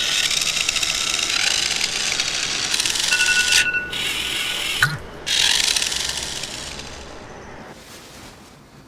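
A rapid mechanical rattling, like a ratchet turning, with a short high beep a few seconds in. The rattling fades away over the last couple of seconds.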